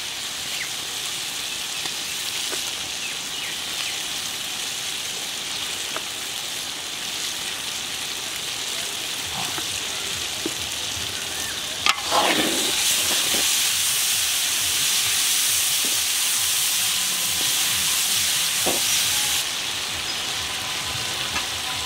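Sliced onions and spices frying in hot oil in a kadai: a steady sizzle. About halfway through a sharp clack comes, and the sizzle turns louder for several seconds, then eases back near the end.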